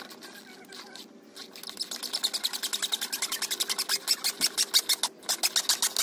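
Rapid, even clicking of a tool turning a screw, about ten clicks a second, starting about a second and a half in, with a brief pause near the end.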